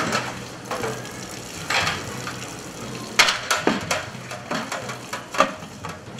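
Large steel cooking pots clanking and knocking against each other as they are washed under a running tap, with water splashing into them. There are several sharp metal knocks, the loudest about three seconds in.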